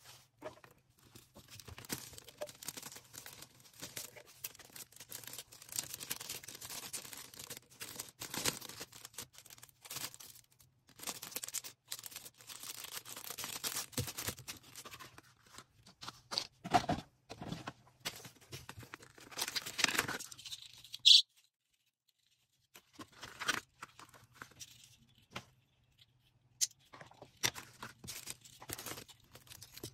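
Hands packing an order: packaging crinkling and tearing in irregular bursts, with one short, sharp, high-pitched sound about two-thirds of the way through, the loudest moment, followed by sparser handling noises.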